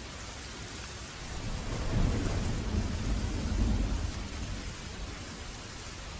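Steady rain with a roll of thunder: a low rumble swells about a second and a half in, stays loud for a couple of seconds and fades away under the rain.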